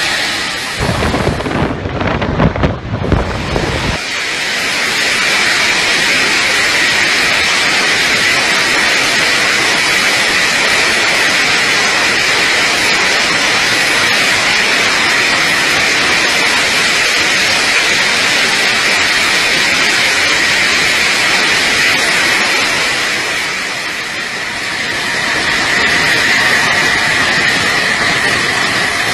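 Jet bomber's engine roar and rushing airflow picked up by a camera on the underside of a Su-24. A gusty, deep rumble for the first few seconds, then a steady, even rush.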